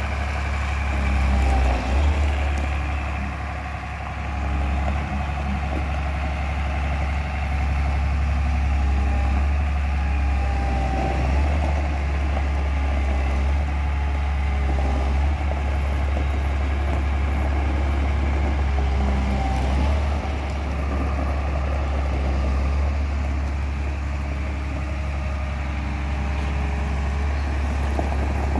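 Caterpillar M318C wheeled excavator's diesel engine idling steadily, with a constant low rumble.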